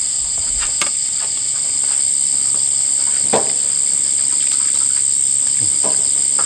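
Steady, high-pitched chorus of insects such as crickets, with a few scattered light clicks and a brief knock about three seconds in.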